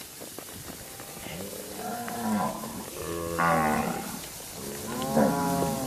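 Cattle mooing: about three drawn-out moos, each rising and falling in pitch, about two, three and a half and five seconds in, the last two the loudest.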